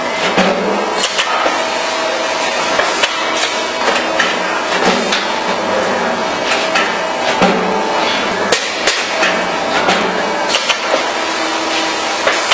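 Automatic sandpaper disc cutting press running: irregular sharp knocks of its cutting strokes over a steady machine hum.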